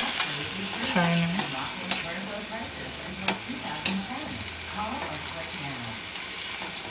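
Chicken and onions sizzling steadily as they fry in a small pan with mustard sauce, with a utensil stirring them and two sharp clicks of it against the pan around the middle.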